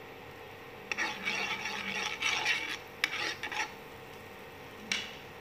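Melting butter being rubbed and scraped across a hot flat griddle pan with a utensil: a run of scraping strokes from about a second in until nearly four seconds, with a sharp tap at the start of the strokes and another near the end. A steady hum runs underneath.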